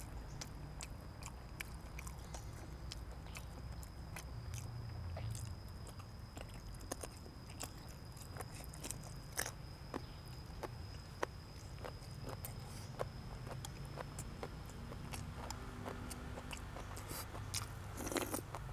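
A person chewing food close to the microphone, with irregular crisp crunches and wet mouth clicks, and a denser run of crunches near the end.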